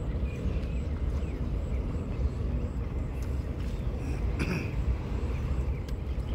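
Wind buffeting the microphone: a steady low rumble, with a brief higher sound about four seconds in.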